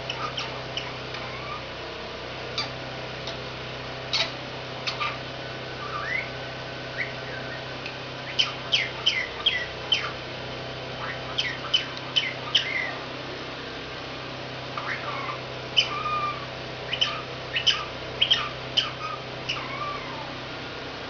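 Pet parrot chirping and whistling in short, sharp calls that come in quick runs with pauses between.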